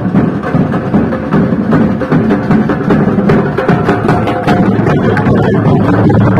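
Loud music with drums and other percussion, dense with quick strikes.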